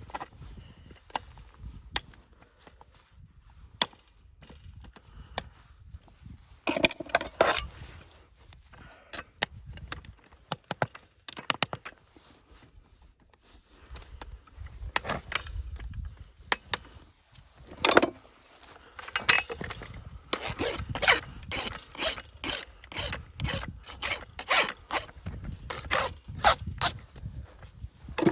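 Farrier's rasp filing a horse's hoof in runs of quick scraping strokes, sparse at first and dense and rapid through the second half.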